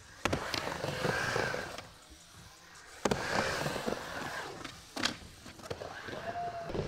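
Skateboard on a wooden vert ramp: three sharp clacks as the board drops back in and hits the ramp, each followed by the wheels rolling across the wood.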